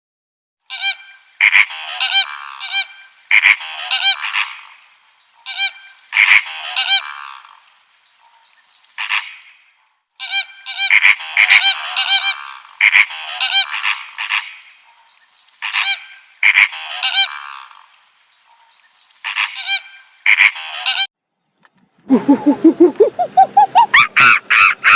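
Geese honking: loud, repeated calls in clusters of several honks, with short pauses between clusters. Near the end a different animal call starts, a fast run of pulses rising in pitch.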